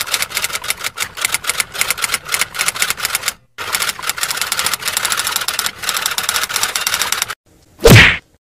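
Typewriter sound effect: rapid, rattling keystrokes with a short pause about three and a half seconds in. Near the end the typing stops and a single loud punch sound effect hits.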